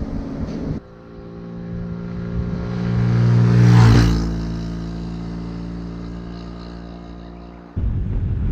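A vehicle passing by: a steady engine hum with a rush that grows to its loudest about four seconds in, then fades. Wind rumble on the microphone fills the first second and the last second.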